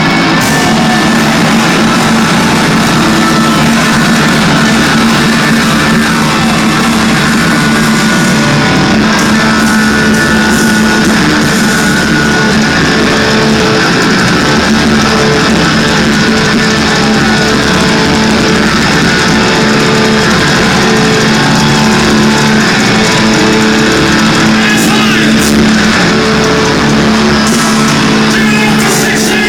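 Live heavy rock band playing loudly, with electric guitar and bass holding sustained chords.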